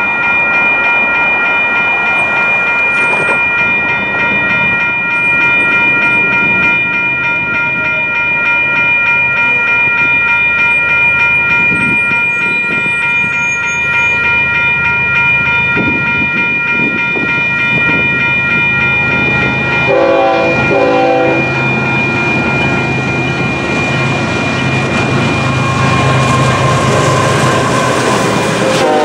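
Electronic railroad crossing bells ringing continuously. From about two-thirds of the way in, a freight train's diesel locomotives grow louder as they reach the crossing, with a short horn sound about two-thirds in and another near the end.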